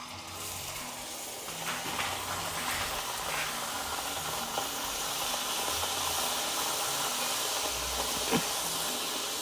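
Puris deep-frying in hot oil, a steady sizzling hiss that builds over the first couple of seconds, with a few small crackles.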